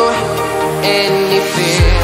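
Electronic background music with sustained synth tones; the deep kick-drum beat drops out and comes back in near the end.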